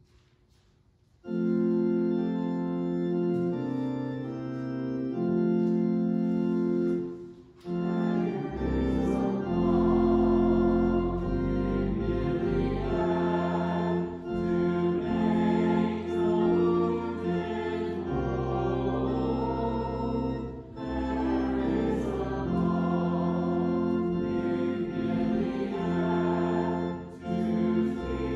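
Church organ playing slow, sustained chords, starting about a second in. Deep pedal bass notes join about eight seconds in.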